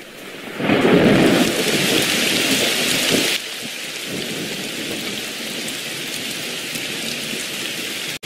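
Heavy rain with a loud rumble of thunder from about half a second in. The thunder drops away abruptly a little past three seconds, leaving steady rainfall.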